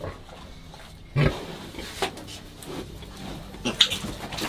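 A sow and her young piglets in a pen, grunting and squealing in short bursts; the loudest comes suddenly about a second in.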